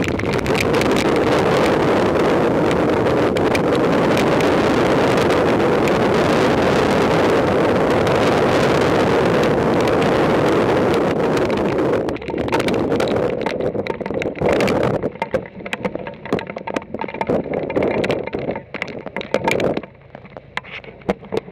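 Strong wind blowing hard across the microphone as a loud, steady rush. About twelve seconds in it breaks into irregular gusts, and it drops off near the end.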